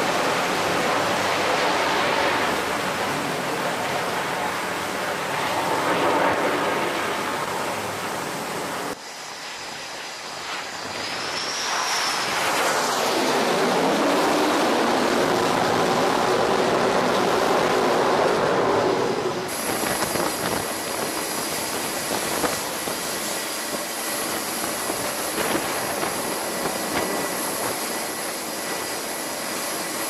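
F/A-18 Super Hornet jet engines on a carrier flight deck. First comes loud full-power jet noise as a jet launches from the catapult. After a cut, a jet passes, rising and then falling in pitch. After another cut, there is a steadier, quieter whine with a high steady tone from a jet running on deck.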